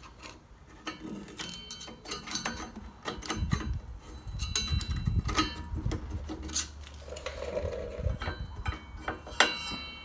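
Small metallic clicks and taps of old brake pads being worked loose and slid out of a Harley-Davidson front brake caliper, with one sharper click near the end.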